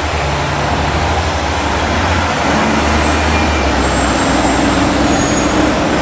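Steady city traffic noise with a low, steady hum running under it.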